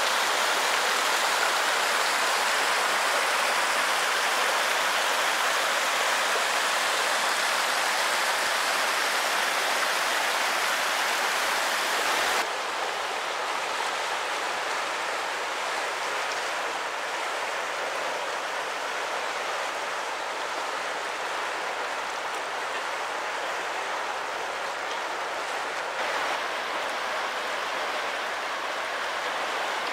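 Rushing water, a steady rush. First a small mountain stream splashes down over boulders. About twelve seconds in it gives way suddenly to the Ganges running fast over rapids, a slightly quieter and duller rush.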